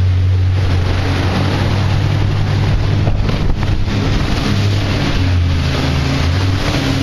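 Engine running steadily with a low drone that shifts slightly in pitch about five seconds in, over the rush of the water jetpack's spray and churning wake.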